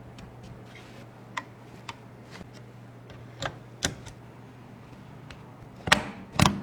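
Scattered light clicks and taps of PC parts being handled and fitted, ending with two louder snaps close together near the end, over a low steady hum.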